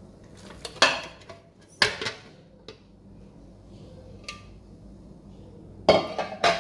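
Metal bundt pan clanking against a glass cake dish as it is handled and lifted off the unmoulded jelly cake. There are sharp clanks about one and two seconds in, a small ringing tap around the middle, and a quick cluster of clanks near the end.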